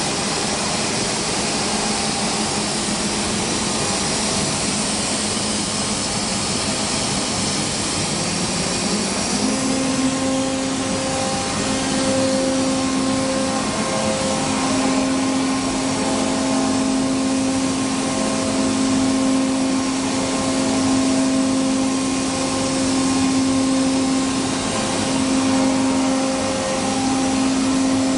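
HOMAG CNC router running: a steady rushing mechanical noise, with a whine that rises in pitch about nine seconds in and then holds.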